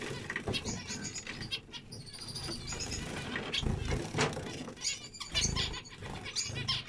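Zebra finches calling: many short, repeated, pitched nasal calls overlapping, with a couple of low rumbling bursts in the middle.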